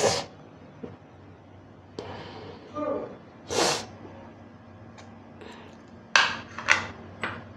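Metal spoon stirring dry breadcrumbs in a ceramic plate, giving a few short gritty scrapes: one a little past halfway and three close together near the end.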